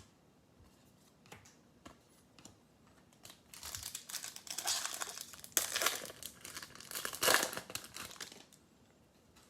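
A few faint clicks, then, about three seconds in, the foil wrapper of a trading card pack crinkling and tearing as it is ripped open, for about five seconds.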